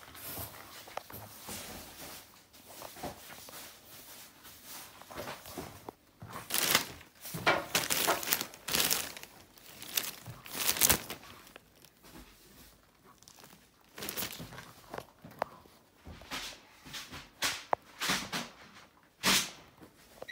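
Irregular bursts of rustling with a few knocks, loudest in the middle and again near the end.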